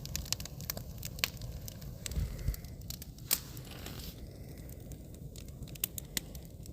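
Wood campfire burning, crackling with irregular sharp pops over a low steady rumble.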